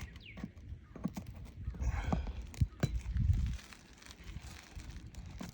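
A few scattered sharp knocks and taps with two dull low thumps, from hand work on an asphalt shingle roof.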